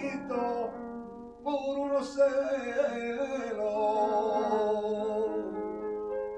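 Male flamenco singer drawing out a long, wavering melismatic line without clear words, over held notes of an instrumental accompaniment. The line breaks briefly about a second in and then resumes.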